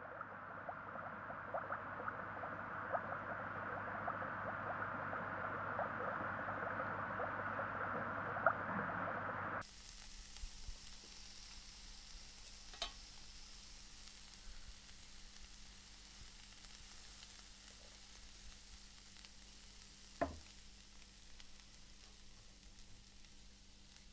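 Meat sizzling and crackling on a tabletop hot plate for yakiniku. It swells up at first, then about ten seconds in cuts suddenly to a quieter sizzle, with a couple of sharp clicks of chopsticks against a ceramic rice bowl.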